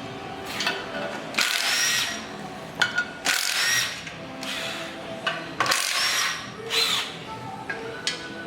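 A power tool run in about five short bursts, each lasting half a second to a second, while bolts are worked on during the clutch teardown.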